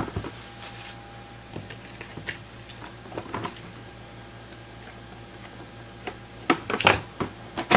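Cardboard box and its packing being opened by hand: scattered light taps and clicks of cardboard, with a louder cluster of scrapes and taps near the end.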